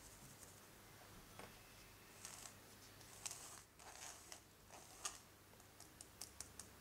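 Spatula scraping almond flour and powdered sugar through a fine metal mesh sieve: soft gritty swishes, then a few light ticks near the end.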